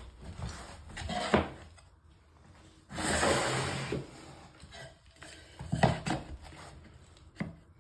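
Laminate floor boards being handled and positioned on foil-faced underlay: several sharp clacks of board against board, and a noisy scrape lasting about a second midway.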